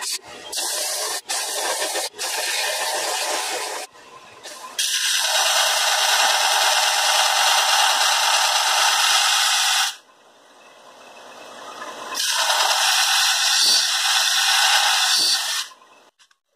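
Steel knife blade, made from an old chisel plow, being ground on a running 4 x 36-inch belt sander: a hiss of metal on the abrasive belt. First come several short, broken passes, then two long pressed passes of about five and three and a half seconds with a quieter spell between them. The sound cuts off suddenly near the end.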